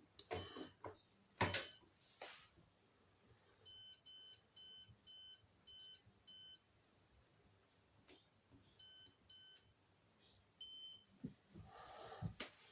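Hoover washing machine's control panel beeping: six short beeps at about two a second, then two more, then one beep of a different pitch, as the wash programme and options are set. A few clicks or rustles come before the beeps.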